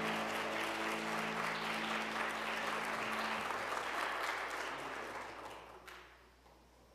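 Congregation applauding after a song, with the last sustained piano chord ringing underneath for the first few seconds. The clapping thins out and stops about six seconds in.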